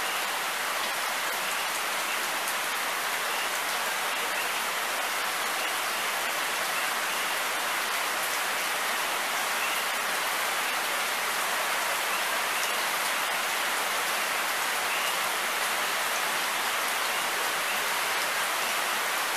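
Steady rain falling. Frogs give faint short rising chirps every few seconds.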